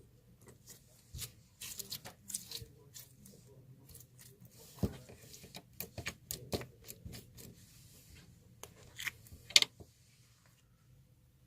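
Hands stretching and squishing slime, giving irregular sticky clicks and small pops, with the loudest snap about nine and a half seconds in.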